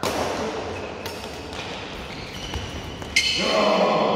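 Badminton rally: several sharp racket hits on a shuttlecock, each ringing in the hall's echo, with a voice calling out after the last hit near the end.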